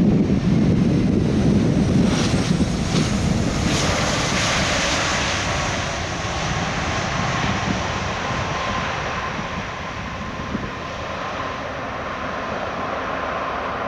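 Jet roar of a Boeing 747-400 freighter's four engines during its landing rollout after touchdown, spoilers up. It swells suddenly right at the start, stays loudest for the first few seconds, then slowly fades as the jet slows down the runway.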